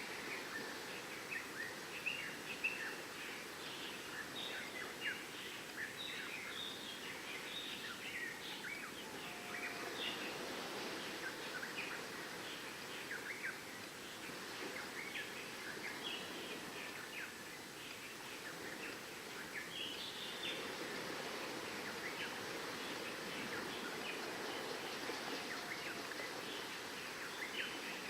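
Many birds chirping in quick, short calls over a steady wash of surf.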